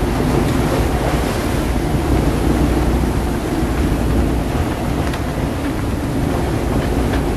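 Strong wind buffeting the microphone over the steady rush of waves around a sailing yacht in a gusty blow.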